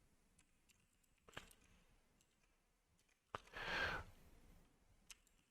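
Near silence in a small room, with a few faint clicks at a computer and a soft breath about two-thirds of the way through.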